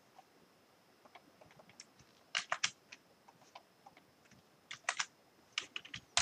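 Computer keyboard typing: scattered groups of a few keystrokes with pauses between them, coming faster near the end.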